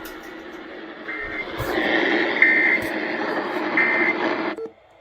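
EAS end-of-message data tones: three short bursts of data tones about 1.3 s apart, marking the close of a monthly emergency alert system test. They come through the hiss and static of a distant AM radio station. The sound cuts off suddenly near the end.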